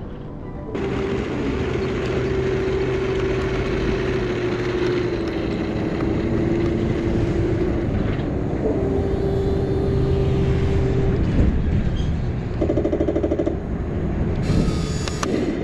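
Heng Long 1/16 M41A3 Bulldog RC tank running: a steady mechanical drone with held tones that step in pitch now and then. Near the end comes a brief rapid rattle, then a short hiss.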